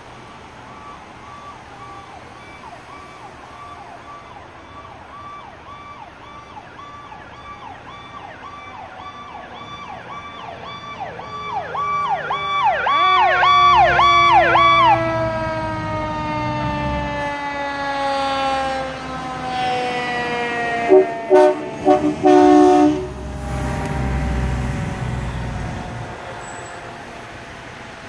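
Fire apparatus sirens: a siren wails and then speeds up into a fast yelp as the trucks approach, and afterwards a siren winds down in a long, slow falling pitch. A little past the middle come a few short, loud blasts of train horns, the loudest sounds here, over the low rumble of the trucks' engines.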